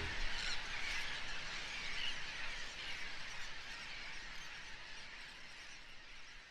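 Outdoor natural ambience, a steady high hiss with a few faint short chirps, slowly fading out.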